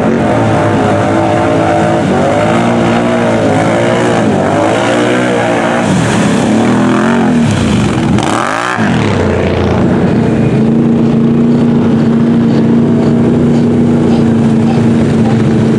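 ATV engines revving up and down as four-wheelers churn through a mud pit. About halfway the revs drop sharply and climb back, then the engine holds steady at high revs.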